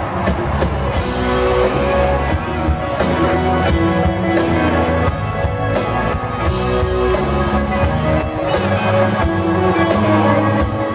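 Live rock band playing loud through a concert PA: electric guitars and an acoustic guitar over a steady drum beat.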